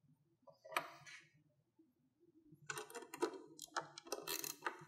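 Faint clicks and clatter of hand work on an ATV's rear rack: a ratcheting wrench on a rack fastener about a second in, then from about halfway a run of irregular knocks and rattles as the fender protector is handled against the rack.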